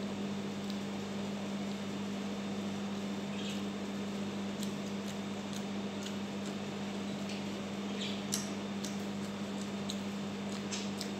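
Chewing and lip-smacking of a person eating by hand: scattered short wet clicks and smacks, more of them in the second half, over a steady low hum.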